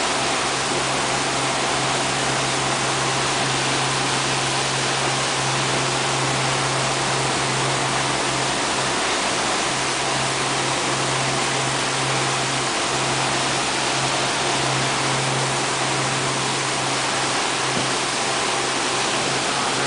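Steady rush of churning wake water behind a moving boat, with the boat's engine droning underneath at a constant pitch.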